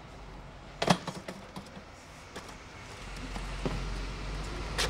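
Skateboard knocking against the ground: one loud sharp clack about a second in and another near the end, with lighter taps between, over a low rumble from about three seconds on.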